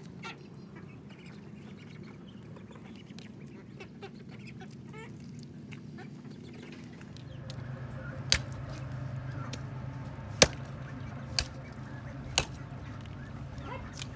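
Meat cleaver chopping chicken pieces on a wooden block: four sharp chops in the second half, about a second apart.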